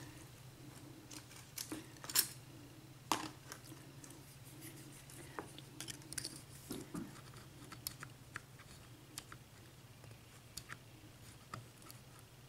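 Small metallic clicks and taps of lock picks being handled and worked in the keyway of a Russwin six-pin cylinder lock, a few louder clicks in the first three seconds, then faint scattered ticks.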